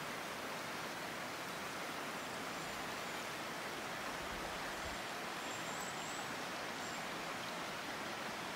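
Forest creek running over stones: a steady, even rush of water.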